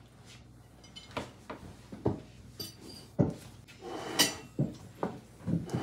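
Knife and fork clinking and scraping on a china plate as a piece of meat is cut, with scattered sharp knocks and brief ringing clinks of tableware at the table.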